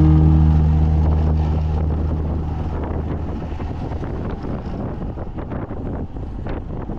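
Wind buffeting a camera microphone, a rough rumbling noise with crackles, under a low steady hum that slowly fades away.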